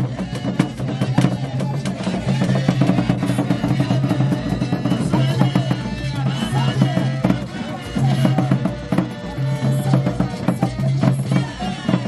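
Traditional Asante drum ensemble playing: large drums beaten with curved sticks in a dense, fast rhythm of strikes over a strong low tone, with pitched sounds woven through the drumming.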